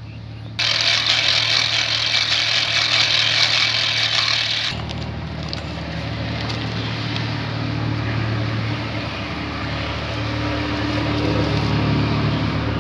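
Steady machinery noise: a loud hiss starts suddenly about half a second in and stops about four seconds later, over a steady low hum that runs on.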